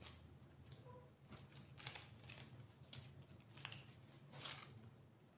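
Faint rustling and crinkling of dry banana-leaf fibre strips as hands lift and weave them over and under, with a few brief crackles a second or two apart.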